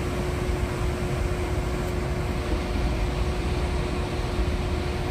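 Trane modulating gas furnace running with its burners lit, a steady rushing noise with a constant mid-pitched hum. It is burning steadily with its gas regulator turned up to correct low incoming gas pressure.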